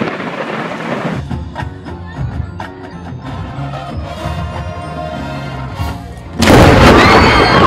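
A marching band playing, with drums and percussion prominent. About six seconds in, a sudden, much louder crash takes over.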